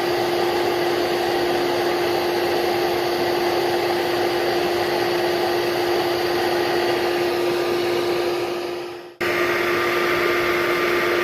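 Vacuum motor running steadily with a constant hum, most likely a bee vacuum sucking the swarm out of the opened wall. It drops out briefly about nine seconds in and comes straight back.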